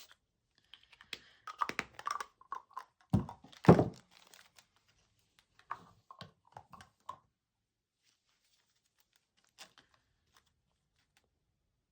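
Sticky slime being worked and stretched by hand after a spray of borax activator: a run of soft clicks and crackles, with two louder thumps a little over three seconds in and a few more short squishes a couple of seconds later.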